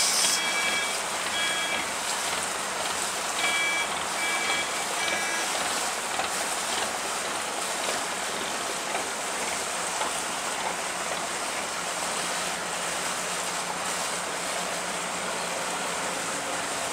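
Steady rushing hiss of water washing along the hull of a Kerala houseboat under way. A few short high chirps sound in the first five seconds.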